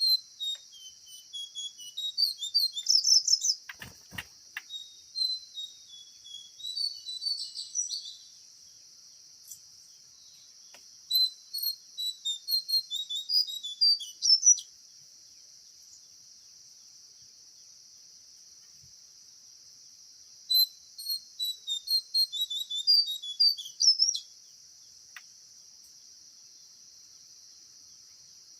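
A songbird calling in three bursts of rapid chirps and short whistles, each several seconds long, over a steady high buzz of cicadas or crickets; a single dull knock sounds about four seconds in.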